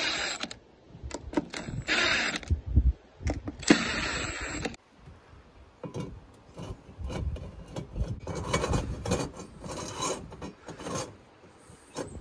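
Ryobi cordless drill driving screws into deck hardware in three short runs over the first five seconds, followed by scattered clicks and knocks of hardware being handled.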